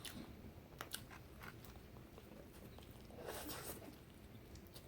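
Faint chewing: a few soft mouth clicks and a brief wet, noisy chew about three seconds in.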